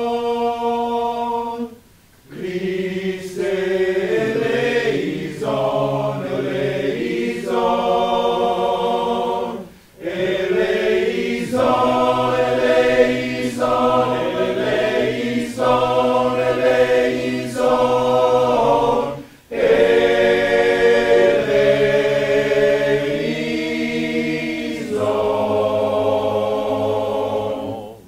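Men's choir singing a cappella in long held chords, phrase by phrase, breaking off briefly about 2, 10 and 19 seconds in.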